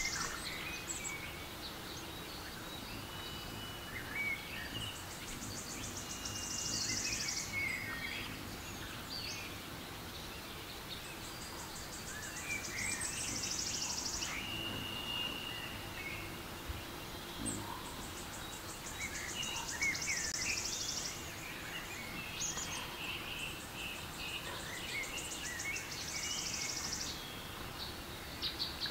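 Recorded forest ambience from a relaxation-sounds app: birds chirping and whistling over a steady background hush, with a high, buzzy trill of rapid pulses coming back about every five to six seconds and lasting a couple of seconds each time.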